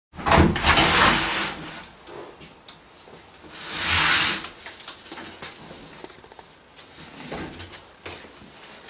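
A door being opened: two loud scraping sweeps, each about a second long, one right at the start and one about four seconds in, followed by quieter knocks and shuffling movement.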